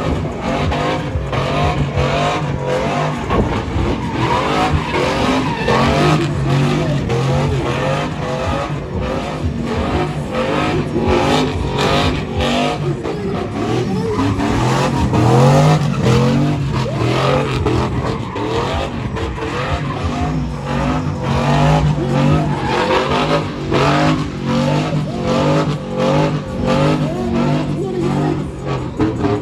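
Car engine revved hard and repeatedly up and down while its tires spin and screech, as in a burnout.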